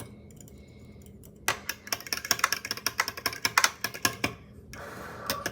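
A spoon or spatula stirring instant coffee powder and sugar in a cup, clinking rapidly against the sides; the clinking starts about a second and a half in and stops shortly before the end.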